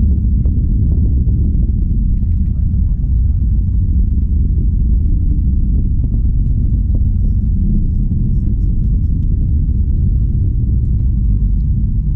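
Steady, deep rumble of a SpaceX Falcon 9's nine Merlin first-stage engines during ascent, heard from several kilometres away.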